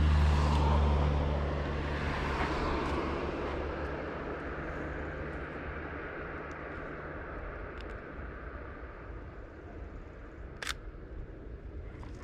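A motor vehicle passing close by, its engine hum loudest at the start and fading away over several seconds. About ten and a half seconds in, a single sharp click of the Sony Alpha 6000's shutter.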